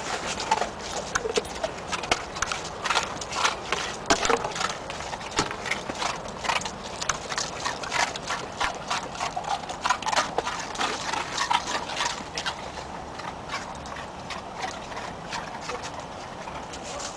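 Irish wolfhounds crunching snow: a dense run of irregular short crunches that thins out after about twelve seconds.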